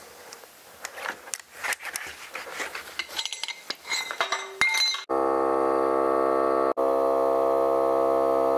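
Scattered metallic clinks and clicks from handling the ratchet strap and gear around the wheel. About five seconds in, a Milwaukee cordless tire inflator starts with a steady, even-pitched drone, pumping air into the newly beaded tire.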